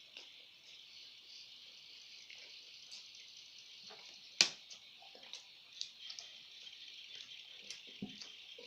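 Close-up eating sounds, small chewing smacks and clicks with one sharp click about four and a half seconds in and a soft thud near the end. Under them runs a steady high chirring hiss like a chorus of insects.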